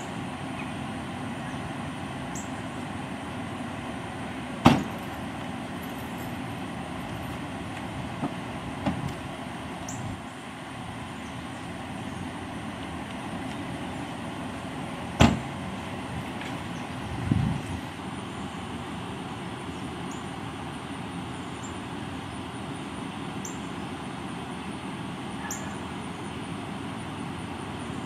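Steady outdoor vehicle hum, broken by two sharp slams about ten seconds apart, typical of a police SUV's rear hatch and door being shut, with a few lighter clicks between them and a duller thump soon after the second slam.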